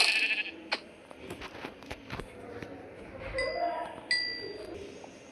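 A loud burst of noise at the start, then scattered clicks and knocks, with two short, clear ringing clinks a little over half a second apart about three and a half seconds in.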